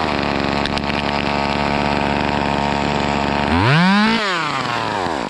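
Small two-stroke chainsaw starting abruptly and running steadily at idle, then revved once about three and a half seconds in, its pitch climbing and falling back before it winds down and stops near the end.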